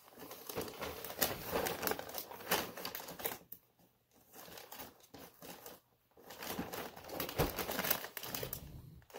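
Christmas wrapping paper crinkling and rustling as it is folded and pulled around the end of a box, in three stretches with two short pauses.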